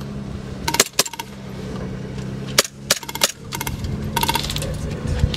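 Airsoft guns firing: sharp single shots about a second in and again around three seconds, and a short rapid burst about four seconds in. Under them runs the steady low drone of an armored car's engine.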